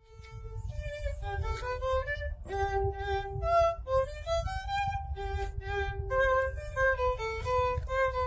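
Background music: a melody of held notes that change every half second or so, over a low rumble.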